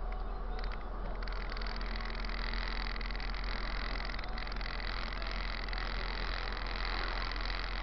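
City bus driving along a street, its engine and road noise heard from inside the driver's cab as a steady low rumble.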